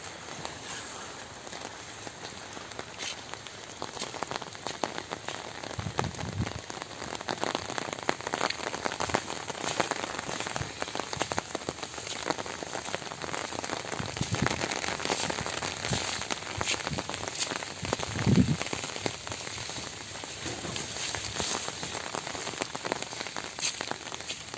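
Rain pattering steadily on leaves and wet ground, a dense run of small drop ticks. A few dull low thumps stand out, the loudest about three quarters of the way in.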